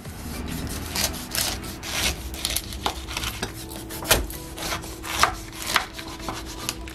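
Kitchen knife cutting the tough rind off a whole pineapple on a wooden cutting board: irregular crunching strokes through the rind and knocks of the blade on the board.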